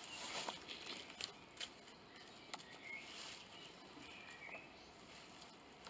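Faint woodland ambience with a few short bird chirps, and a few light clicks and rustles of handling during the first half.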